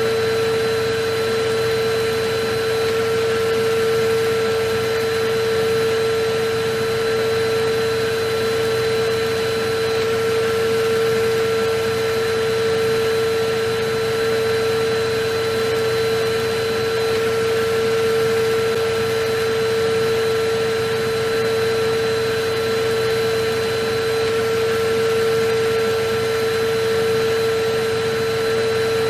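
Electric vacuum cleaner motor running steadily: a continuous rush of air with a constant high whine, unchanging throughout.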